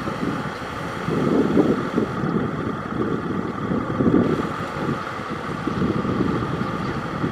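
Tractor engine running steadily while ploughing through deep mud, with low surges about once a second and wind on the microphone.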